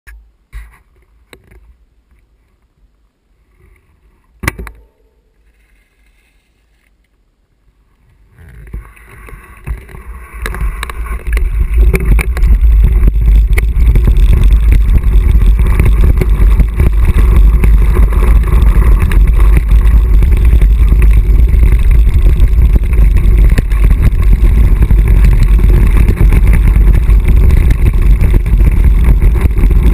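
Mountain-bike descent on a rocky trail: wind buffeting the camera microphone along with bumps and rattles from the rough ground, building from about eight seconds in to a loud, steady rumble. Before that it is quiet, with a few clicks and one sharp click about four and a half seconds in.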